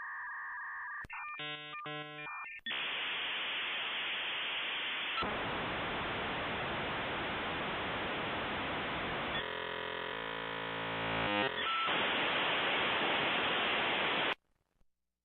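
Digital data transmission sound: a short burst of pulsing, stepped tones, then a long steady hiss of static with a stretch of buzzing tones about ten seconds in. It cuts off abruptly about a second before the end.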